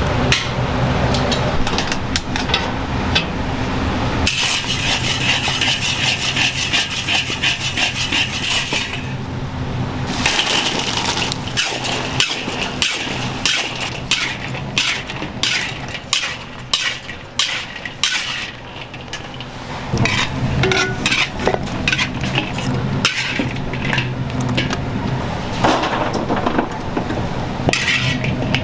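Food-prep clatter: metal utensils, pans and containers knocking and scraping in quick, irregular strokes over a steady low hum, with a few seconds of dense hiss from about four seconds in.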